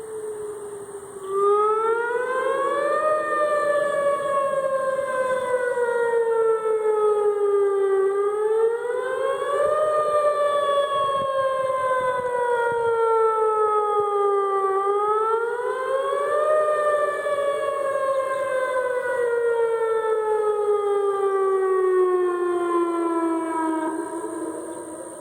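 Whelen WPS 2805 electronic outdoor warning siren sounding a test signal for the emergency warning system. Its tone rises quickly over about two seconds, then falls slowly over about five, in three repeated cycles, with echo.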